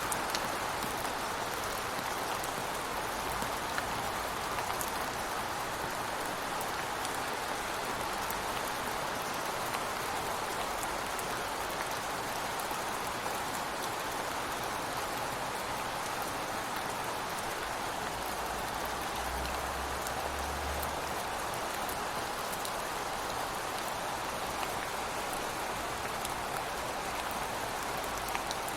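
Steady rain falling outside a window, an even hiss with scattered drops ticking on surfaces. A brief low rumble comes in about two-thirds of the way through.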